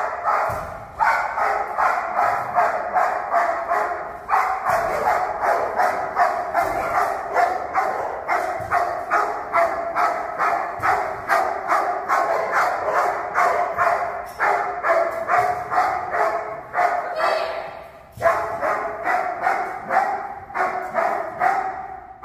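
A protection dog giving a steady, rapid guard bark, about three barks a second, with a couple of brief breaks. It is the controlled "talking" bark of a dog held in position while a decoy circles it.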